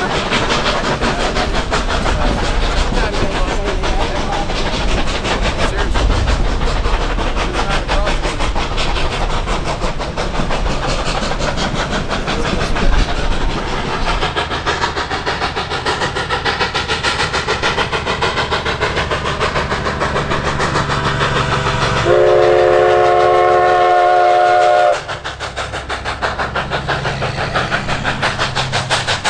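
Narrow-gauge steam locomotive working hard upgrade, its exhaust beating in a fast, steady rhythm. About three-quarters of the way through, its whistle blows one long blast of about three seconds.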